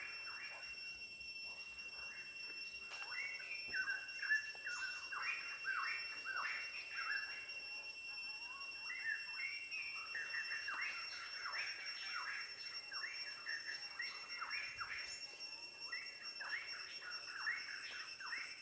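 Kitchen knife slicing kernels off a raw corn cob: a dense, irregular run of crisp, crunching cuts that starts about three seconds in and goes on to the end. Under it a steady, high-pitched insect drone.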